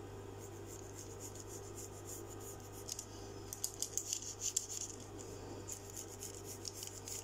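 Pencil scratching on paper as a curved line is traced, in short quick strokes that come thickest about halfway through, over a steady low hum.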